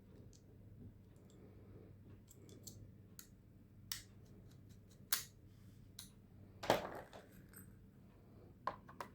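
Faint, scattered clicks and small knocks of hard plastic and metal parts being handled, as a new hard drive is fitted into a laptop's drive tray. The loudest click comes about two-thirds of the way through.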